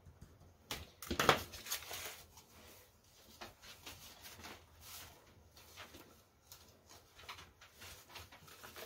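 Paper banknotes rustling and crinkling as a handful of bills is pulled out of a cash-binder pocket and shuffled. A louder burst of rustling comes about a second in, followed by lighter, intermittent crinkles.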